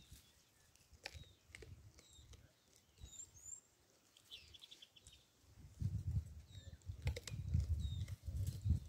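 Open-air ambience: small birds give short, high chirps, a few sharp taps sound, and a low rumble on the microphone swells up over the last three seconds.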